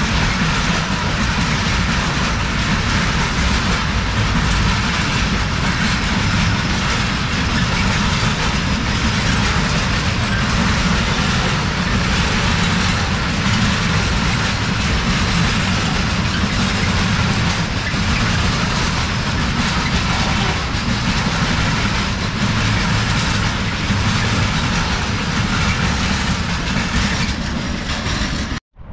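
Freight train passing at close range: a steady, loud rumble of wagon wheels, with clicks as they run over the rail joints. It cuts off suddenly near the end.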